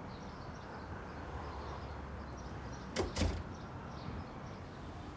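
Wooden front door swung shut, latching with a sharp double knock about three seconds in.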